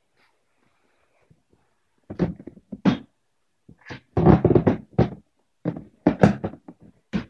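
Plastic toy dinosaurs knocked together and shifted by hand in a pile: irregular thumps and knocks, starting about two seconds in and coming in quick clusters.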